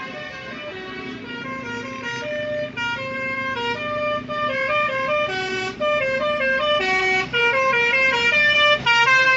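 Bus 'telolet' horn: a multi-tone horn playing a fast melody of short stepped notes, growing louder, with a steady low drone underneath.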